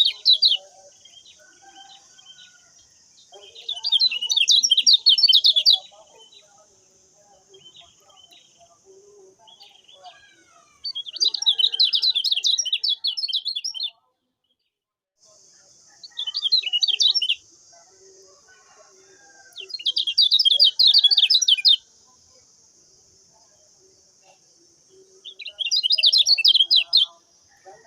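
Lemon-bellied white-eye (kecial kuning) singing in repeated bursts of rapid, high chattering notes, each burst about one to two and a half seconds long, six in all. A steady high hiss runs behind the song and cuts out for about a second near the middle.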